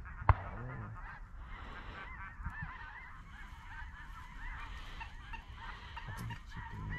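Many geese honking and calling over one another in a steady chorus of short rising-and-falling calls, with one sharp knock just after the start.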